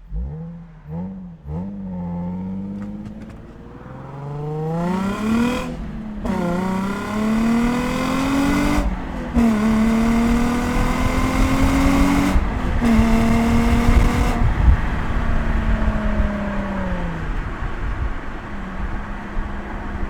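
Nissan 350Z's 3.5-litre V6 on its factory exhaust: a few short revs, then the car accelerating hard through the gears, the engine note climbing and dropping at each of three upshifts. Near the end it eases off, the pitch falling away.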